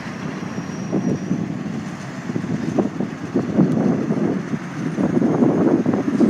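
Fire engine's diesel engine running, a low uneven rumble that grows louder from about three seconds in.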